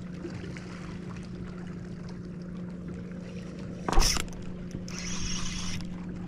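Garmin Force electric trolling motor running with a steady hum, with one loud sudden thump about four seconds in and a short hiss after it.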